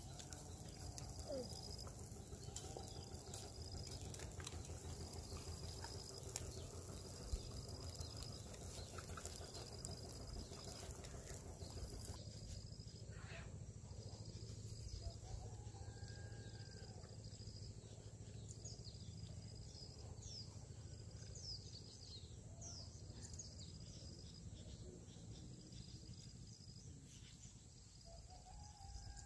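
Quiet rural outdoor ambience: a short high chirp repeating about once a second, with scattered bird calls in the second half over a low steady rumble.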